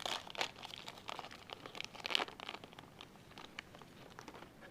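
Crinkling and rustling of a foil trading-card pack wrapper being handled and opened, with quick irregular crackles. Busiest in the first couple of seconds, then fainter.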